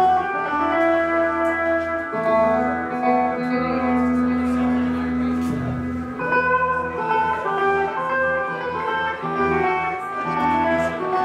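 Live rock band playing: electric guitar over bass guitar and drums, with a long held guitar note in the middle.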